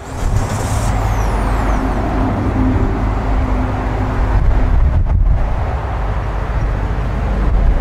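Vehicle engine running with a heavy low rumble, and a brief high falling whistle about a second in.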